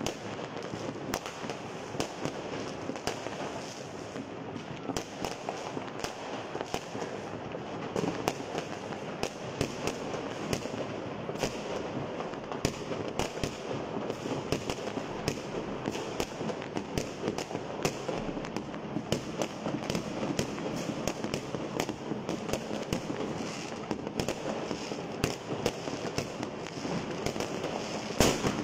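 Many fireworks going off at once: a dense, continuous din of overlapping bangs and crackling, with one louder bang near the end.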